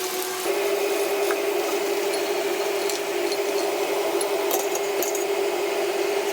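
Coated macaroni deep-frying in hot oil: a steady sizzle over a steady hum, both getting louder about half a second in.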